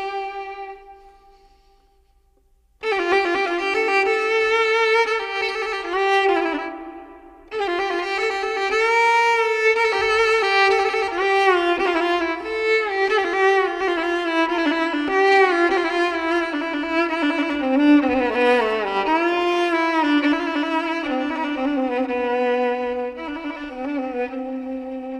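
Background music: a solo violin playing a slow, wavering melody. It fades out near the start, pauses about a second, then comes back about three seconds in and runs on, with a short break near seven and a half seconds.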